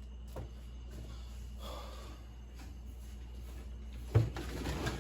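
Hand-working noise from fitting a rear view mirror: faint rustling, then one sharp knock about four seconds in followed by scraping and rustling, over a low steady hum.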